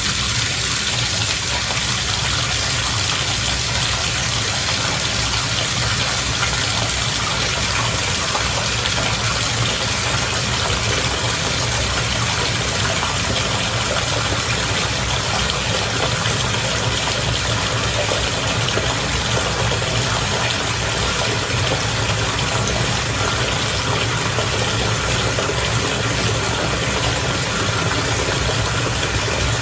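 Bath water bubbling and churning steadily, with a low steady hum underneath.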